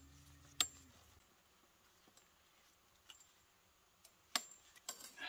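Small sharp metal clicks of a wire T-post clip being fastened around barbed wire and a steel T-post: one sharp click about half a second in, then a few lighter clicks near the end.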